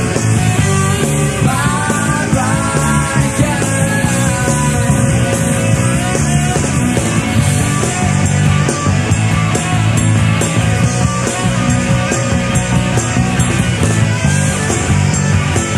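A rock band playing live, loud and dense, with electric guitars and bass.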